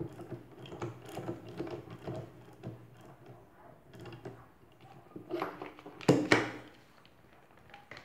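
Metal clicks and clunks of a hook-type coil spring compressor being fitted and handled against a strut's coil spring, with a louder clatter about six seconds in.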